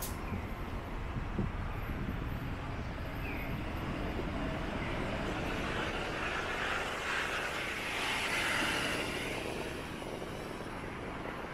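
Steady vehicle noise on a city street, swelling louder for a couple of seconds past the middle before settling back.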